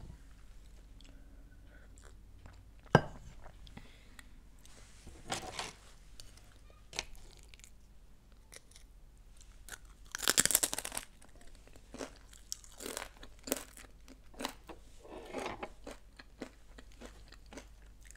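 Crunchy corn tortilla chips being bitten and chewed. A loud crunching bite comes about ten seconds in, amid scattered smaller crunches.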